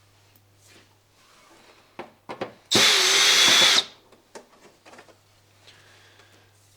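Power drill running in one short burst of about a second, with a steady high whine, a few clicks just before it.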